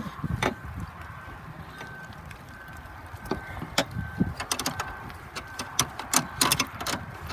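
Scattered sharp metallic clicks and taps of a wrench and hands working an air-conditioning line fitting, busier about six seconds in, with a faint short high beep repeating about once a second.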